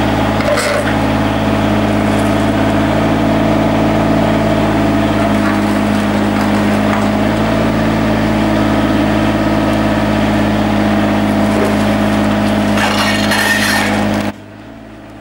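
FAI mini excavator's diesel engine running steadily while its boom lifts a heavy millstone upright. A scraping noise comes about a second before the sound cuts off abruptly near the end.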